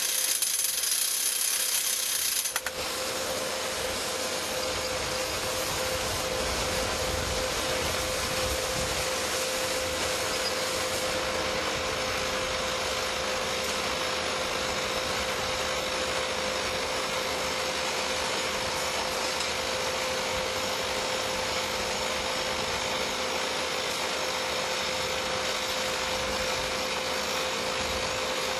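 SOOSAN STD11 hydraulic crawler drill: the harsh top-hammer drilling noise stops suddenly about two and a half seconds in. The rig then runs steadily with a constant whine while changing drill rods.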